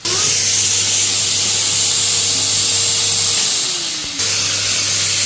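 Henry vacuum cleaner motor running at full speed with a steady hum and hiss. About three and a half seconds in its pitch drops as if winding down, then it cuts back in abruptly at full speed just past four seconds.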